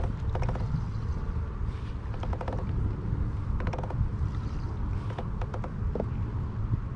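Kayak and fishing gear creaking and clicking in short bursts of rapid clicks, about one burst every second and a half, over a steady low rumble.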